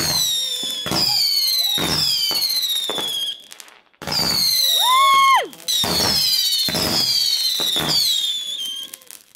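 Fireworks firing in quick succession: each shot gives a falling whistle and a sharp bang, about one a second. There is a short lull about three and a half seconds in, followed by one lower-pitched whistle.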